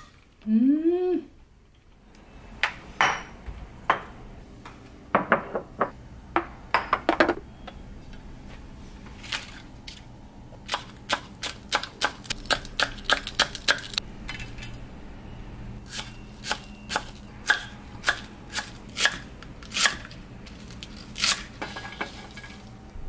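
Kitchen knife slicing green onion on a wooden cutting board: a run of quick, sharp knife strikes, about four a second at their fastest, broken by short pauses. Just after the start, a voice gives a short, loud rising hum.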